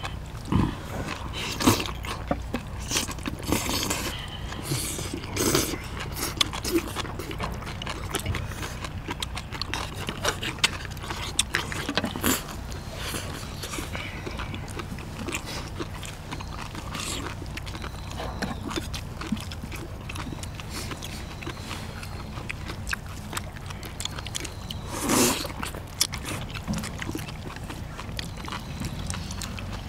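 People eating spicy braised seafood with noodles: close-up chewing, smacking and slurping, with frequent small clicks of chopsticks, with a steady low rumble underneath.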